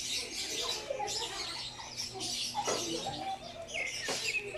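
A flock of African lovebirds chattering, with dense, continuous high-pitched chirps and squeaks.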